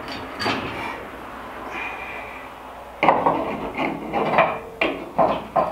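Handling noise from a large carbon-fiber rear wing being worked onto its chassis mounts: faint shuffling at first, then from about halfway a quick run of rubbing and knocking strokes.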